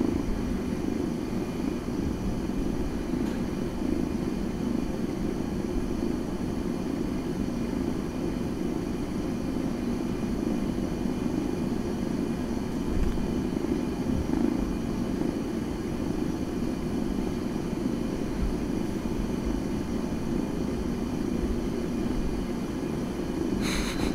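Calico kitten purring: a steady low rumble, with a brief sharp noise near the end.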